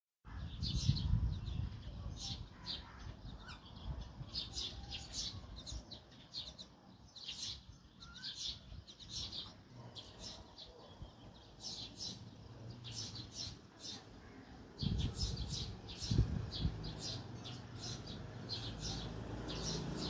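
Common mynas chirping: a long run of short, high chirps, several a second in places. Low rumbling noise comes and goes near the start and again about three-quarters of the way through.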